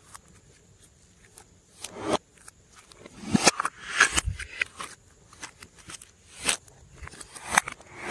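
Slime being squished and kneaded by hand: sticky clicks and pops in short bursts, several louder squelches a second or so apart.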